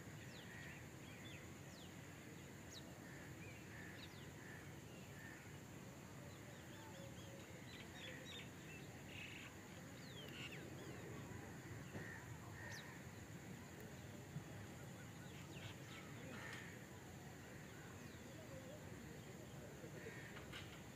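Faint outdoor ambience with scattered short bird calls and chirps over a steady high hiss.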